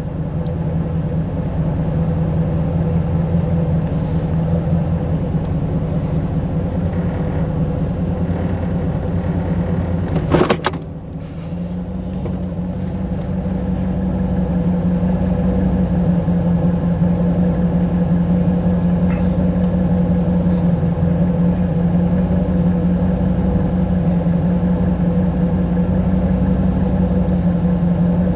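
1985 Camaro IROC-Z's 305 Tuned Port Injection V8 (LB9) idling low, at about 600 rpm in drive, partway through its warm-up from a cold start, heard from inside the car. About ten seconds in there is a brief sharp knock, and after it the engine's hum sits slightly higher in pitch and slowly grows a little louder.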